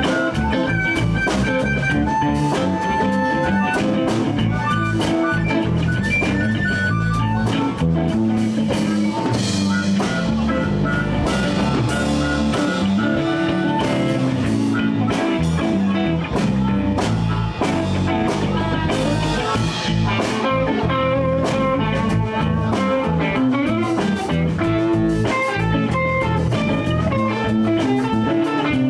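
Live blues band playing an instrumental passage with no singing: electric guitars over bass and a drum kit, with single sustained lead notes on top.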